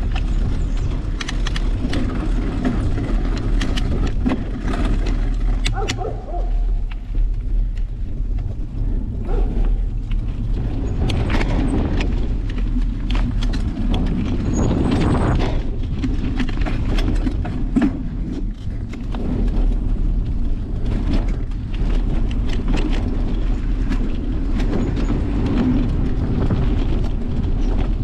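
Steady wind rumble on an action-camera microphone during a mountain-bike ride on a dirt and gravel trail. Tyres crunch over the ground, and the bike rattles and knocks sharply and often over the rough surface.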